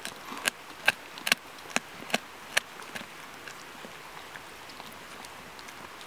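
A dog chewing a raw kokanee salmon, crunching through it with sharp crunches about two or three a second, which stop about two and a half seconds in, leaving only faint ticks.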